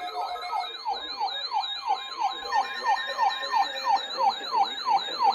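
Electronic siren alarm of a weather alert radio sounding during a test. A falling siren sweep repeats about three times a second, with a high warbling tone above it.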